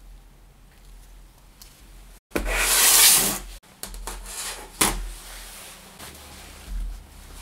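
Rubbing and rustling of gloved hands handling a laptop keyboard and spreading a fabric cloth on a work mat. The loudest part is a rough rub of about a second, a little over two seconds in, set off by two brief dropouts, followed by softer handling noises.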